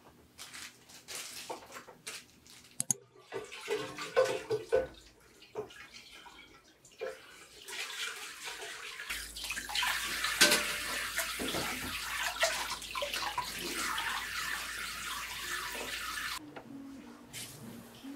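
Kitchen tap running into the sink during dishwashing, a steady hiss of water lasting about seven seconds that shuts off abruptly. Before it come scattered light knocks and clinks.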